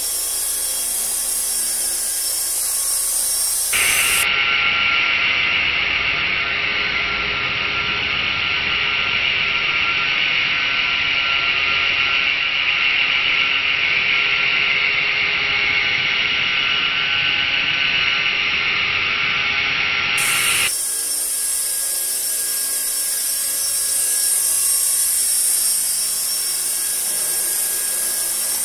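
Kyosho EP Caliber M24 electric RC helicopter hovering: a steady, high-pitched whine from its electric motor and gears, with the whoosh of the rotor blades. From about four seconds in until about twenty-one seconds the sound turns duller, losing its highest part.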